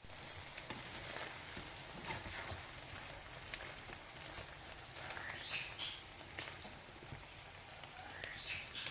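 Food sizzling and crackling in a hot frying pan: a steady hiss full of small pops, swelling louder twice.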